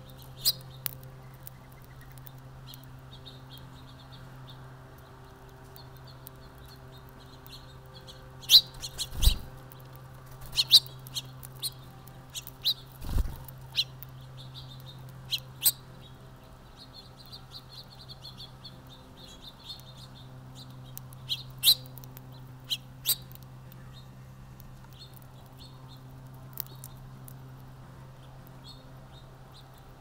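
Small songbirds chirping and twittering in frequent short bursts at a seed feeder, with scattered sharp clicks and taps, two dull thumps about nine and thirteen seconds in, and a steady low hum underneath.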